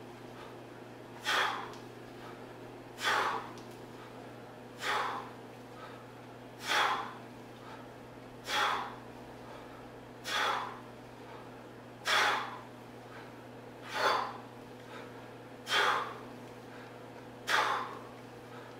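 A man breathing out hard in a short huff with each swing of a 40 kg kettlebell, evenly about every two seconds, ten times.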